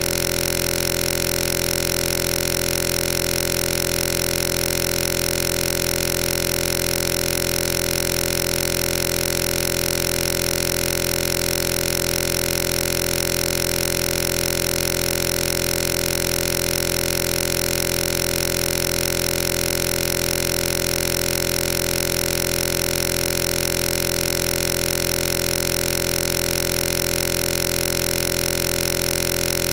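A loud, steady buzzing drone that does not change at all, made of many fixed pitches at once from low to high, with no speech or music.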